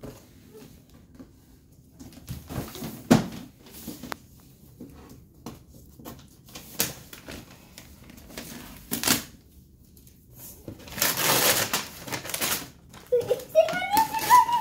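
Gift-wrapping paper being torn and crumpled by hand off a cardboard box: scattered crinkles and taps, then a longer, louder run of tearing about eleven seconds in. Near the end a high, wavering whine starts.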